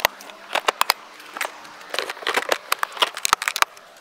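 Hard plastic stackable tool boxes (Milwaukee PACKOUT and WIZ'A System Carry) being lifted and set onto one another, giving a run of sharp plastic clicks and knocks as they seat on the stacks.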